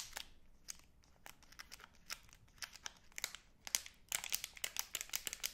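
Shiny plastic wrapper of a Magnum Double Chocolate ice cream bar crinkled between the fingers. Scattered sharp crackles build into a dense, quick run about four seconds in.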